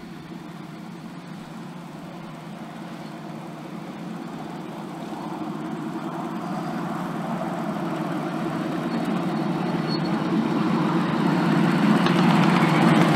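Ride-on miniature railway locomotive running toward the listener: a steady low drive hum with wheels rolling on the rails, growing steadily louder as it approaches and loudest near the end.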